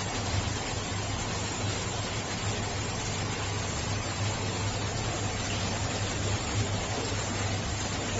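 Aquarium pump or filter running: a steady water-like hiss over a constant low mains hum.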